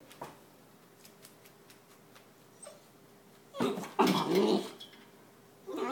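Greater Swiss Mountain Dog puppy vocalizing in play: a few faint ticks, then two short pitched calls just past halfway and another starting near the end.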